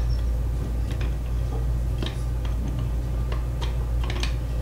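Scattered light clicks and taps as the jaws of a Horotec watch case press are set against a watch caseback and the press is handled, with a cluster of clicks about four seconds in. A steady low hum runs underneath.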